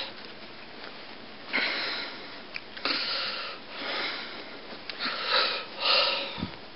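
A man's breath sniffed and blown through the nose about five times in short hissy bursts, with a few faint clicks between them.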